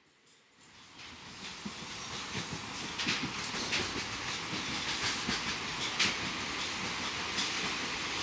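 Train running along the track, fading in over the first few seconds into a steady rattle, with irregular sharp clacks of the wheels over the rails.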